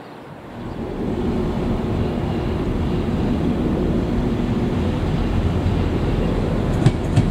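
Northern Ireland Railways CAF diesel multiple unit approaching the station: a steady low engine hum and rumble that comes in about half a second in, with a couple of sharp knocks near the end.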